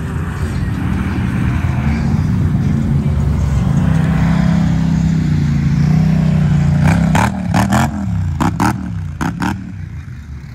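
Vehicle engine revving hard while doing donuts, its pitch climbing and holding high for a few seconds before easing off. A handful of sharp cracks follow in the last few seconds.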